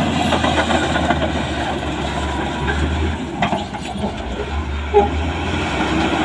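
LiuGong B160C crawler bulldozer's diesel engine running under load, its steel tracks clattering as the blade pushes loose soil. A short squeak stands out about five seconds in.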